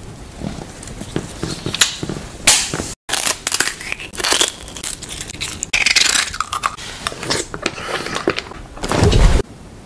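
Crunching and crackling from scissors cutting into a sea urchin's spiny shell, in a string of separate bursts, with a loud crunch near the end.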